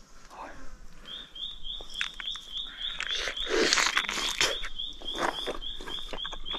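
A man bites into and chews a piece of wild honeycomb, with wet crunching and sucking sounds that are loudest a little past the middle. Behind it, a short high chirp repeats about four times a second, from about a second in.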